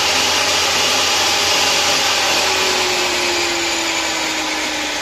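Table saw running as a pine frame piece is fed upright through a tenoning jig to cut a tenon, a steady loud noise. A faint tone falls slowly in pitch over the second half.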